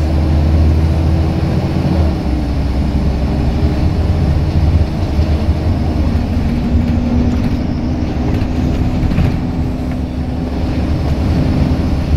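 Scania L94UB Wright Solar single-deck bus's diesel engine being driven hard, heard from inside the rear of the passenger cabin. The engine note is steady and loud, shifts about two seconds in, and settles on a new steady tone around six seconds in.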